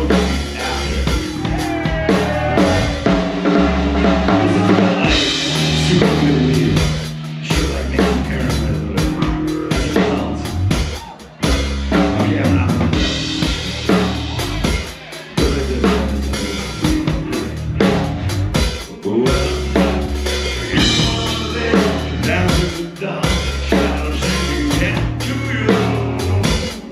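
Live nu metal band playing loud on stage: drum kit with kick and snare, bass guitar, and guitar.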